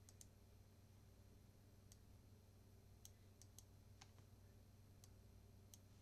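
Faint computer mouse clicks, about nine of them at irregular intervals, over a low steady electrical hum.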